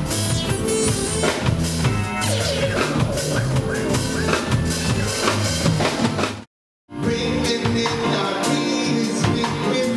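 Live soul band music with a prominent drum kit and some singing. The sound cuts to silence for about half a second roughly two-thirds of the way in, then the music picks up again.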